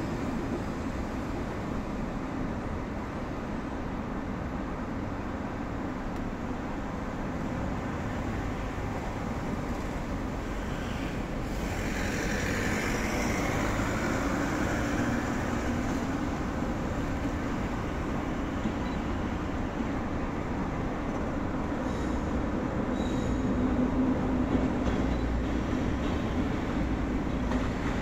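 EF65 electric locomotive hauling Chiki 5200 flat wagons, approaching slowly over yard tracks: a steady low rumble that grows a little louder toward the end. A brief higher-pitched sound comes about twelve seconds in.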